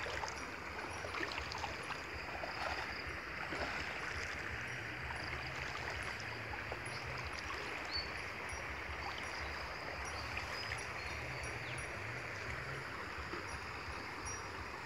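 Shallow, muddy creek water running fast over grass and shallows, a steady rushing and gurgling.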